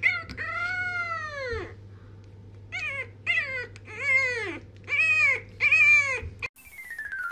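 A pet's drawn-out calls, each rising then falling in pitch: one long call, then five shorter ones about a second apart.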